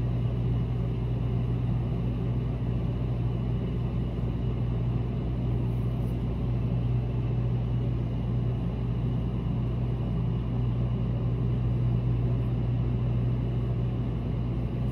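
Steady low hum that holds at one level throughout.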